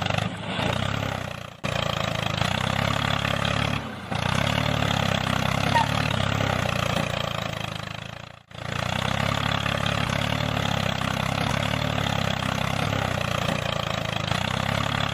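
Tractor engine running steadily at a low idle-like pace, dropping out briefly three times, the deepest drop about halfway through.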